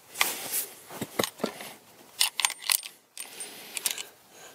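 A string of sharp metallic clicks and rattles from a Savage Axis bolt-action rifle in 300 Blackout being worked by hand and tipped up to shake out spent brass cases that failed to eject, some with a brief ringing clink of brass.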